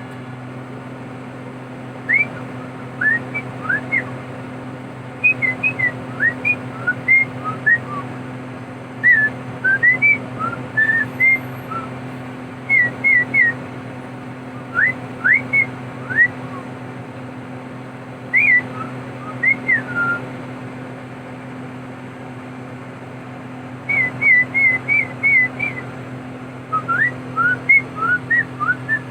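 Short chirping whistles, quick rising and falling notes in clusters of a few every second or two, over a steady low machine hum.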